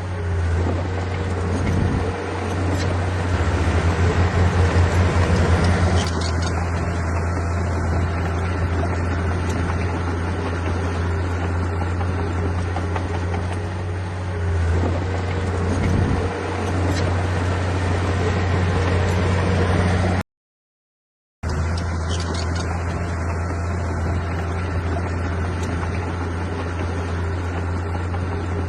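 Heavy diesel earthmoving machinery running steadily, a constant low engine drone that pulses briefly a few seconds in. The audio cuts out completely for about a second roughly two-thirds of the way through.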